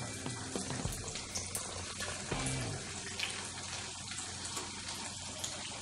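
Sabudana vadas deep-frying in hot oil in a kadai, freshly dropped in over a raised flame: a steady sizzle with fine crackles.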